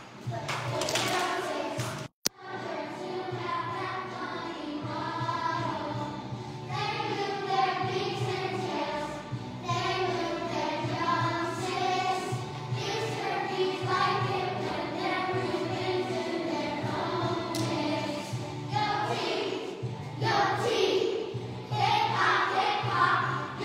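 A group of young children singing a song together over a recorded music accompaniment. The sound cuts out for a split second about two seconds in.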